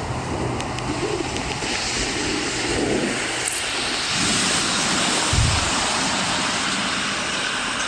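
A steady rushing noise, like wind or surf, with low rumbling underneath and no voice.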